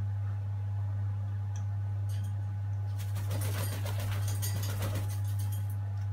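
African grey parrot flapping its wings and clambering on the metal cage bars: a flurry of feather flutters and clicks starting about three seconds in and lasting a couple of seconds, over a steady low hum.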